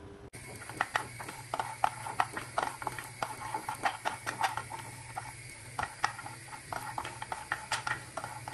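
Cashew nuts being stirred and toasted in a non-stick frying pan with a wooden spatula: irregular clicking and knocking of the nuts and spatula against the pan, over a faint steady hiss.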